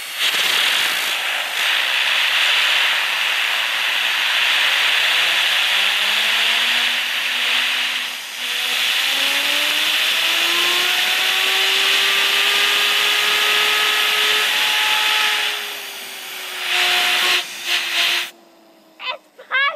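Compressed air from an air-compressor hose hissing steadily onto a fidget spinner, with the spinner's whine rising slowly in pitch as the jet speeds it up. Near the end the air cuts off, and the spinner's hum falls away as it spins down.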